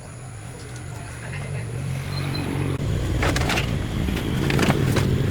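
An engine running with a steady low hum that grows louder, with several scrapes or clatters from about three seconds in.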